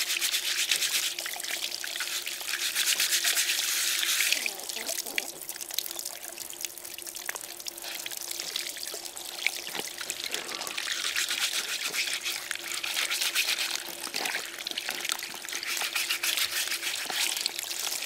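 Water from a hose pouring and splashing over a muddy pottery vessel held in the stream, while a stiff bristle brush scrubs the mud off. The water rush is loudest in the first four seconds, then comes and goes as the piece is moved in and out of the stream.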